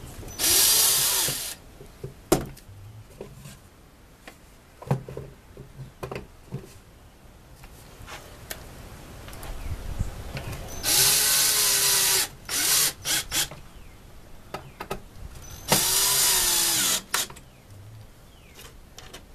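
Power drill running in three short bursts, its motor pitch rising and falling with each trigger pull, with clicks and knocks of handling in between: drilling countersinks and driving screws to fasten the wooden roof.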